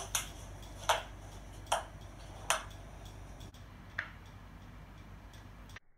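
Ping pong ball hits: four sharp, light clicks about 0.8 seconds apart, then a fainter click about four seconds in.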